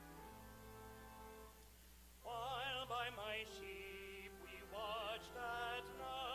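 Sustained keyboard chords, then about two seconds in a solo singer enters with a wide vibrato, singing several phrases over the held accompaniment.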